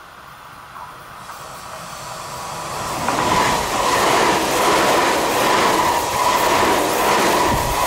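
Electric train approaching, growing louder over about three seconds, then running past close by with rushing wheel and rail noise and a steady high tone.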